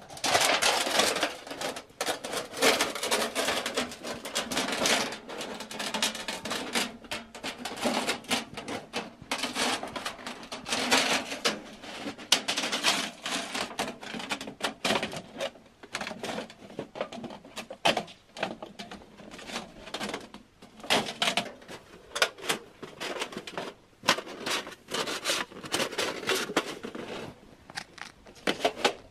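Thin titanium sheet of a roll-up stove chimney pipe being handled and fitted by hand: a rapid, irregular run of metallic clicks, crinkles and scrapes, broken by short pauses.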